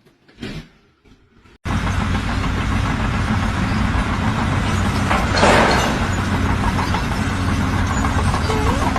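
Loud, steady machinery noise that starts suddenly about two seconds in, with a louder rush of noise about five seconds in.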